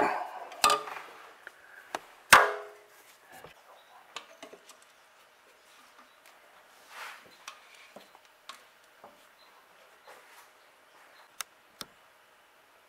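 Hand tools and metal parts knocking and clicking during work under a car. There are two sharp knocks in the first few seconds, the louder one about two seconds in, followed by scattered faint clicks.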